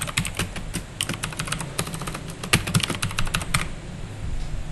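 Typing on a computer keyboard: a quick run of keystrokes that stops about three and a half seconds in.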